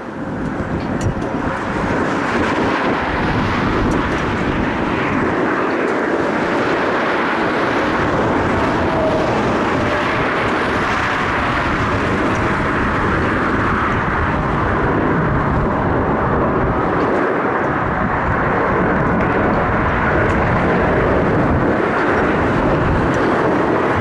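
Jet airliner engine noise, a dense rushing rumble that swells about two seconds in and then holds steady.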